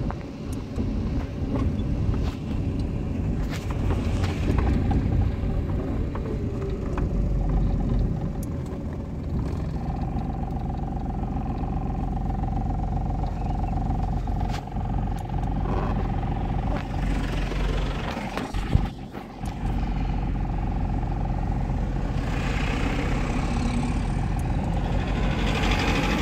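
Vehicle cabin noise while driving on a rough unpaved dirt road: steady engine and tyre rumble. A steady whine comes in about ten seconds in, and there is a single sharp knock a little before the twenty-second mark.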